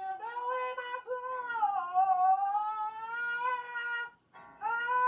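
A man singing long, high, drawn-out notes that slide slowly in pitch. The singing breaks off briefly about four seconds in, then starts again.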